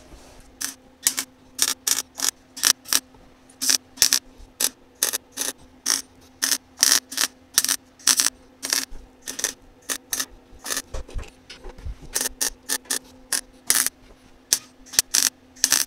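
MIG welder stitch-welding a sheet-steel body panel: a rapid series of short arc bursts, about two or three a second, each one a brief tack, over a steady hum from the machine.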